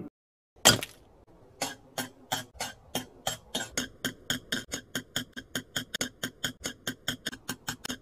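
Electronic Gaia Memory sound effect following the Maximum Drive call: one sharp hit, then a long run of ringing, bell-like ticks that speed up from about three to about five a second, like a charge-up countdown.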